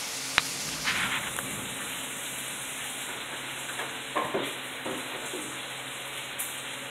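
Heavy hurricane rain falling steadily, a continuous hiss, with one sharp click just after the start.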